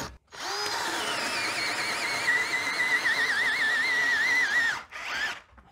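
AEG BSB18G3 18-volt cordless drill in first gear, driving a 40 mm self-feeding auger bit into a thick wooden beam. The motor whine drops in pitch and then wavers as it labours, cuts off near the end, and gives one brief second burst. The drill is stalling: the heavy bit is too much load for it.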